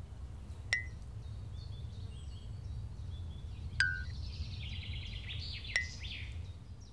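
Three short chime-like pings, each starting with a click, spaced a few seconds apart, with quick high twittering notes through the middle, over a low steady hum.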